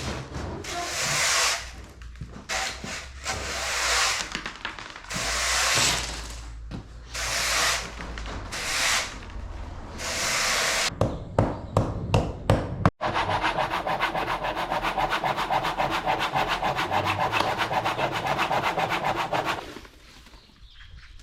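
Scraping work on a house wall: a series of long rubbing scrape strokes, a few sharp clicks, then a fast, even rasping for about six seconds that stops near the end.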